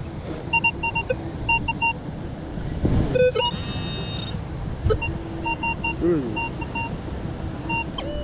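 Metal detectors beeping while searching the beach sand: short beeps repeat in quick groups at a lower and a higher pitch, with one longer held tone a little after three seconds in, over a steady background rumble.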